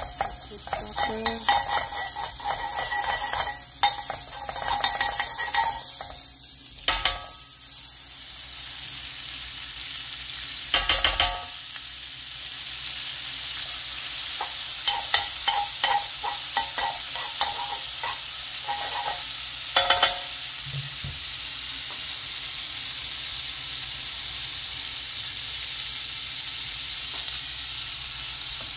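Butter melting and sizzling in a hot nonstick frying pan, with a utensil scraping and tapping against the pan and a few sharp knocks through the first two-thirds; after that only a steady sizzle.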